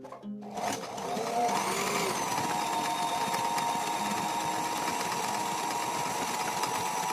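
Sailrite sewing machine stitching sailcloth panels: the motor starts about half a second in, its whine rises briefly as it gets up to speed, then it runs steadily.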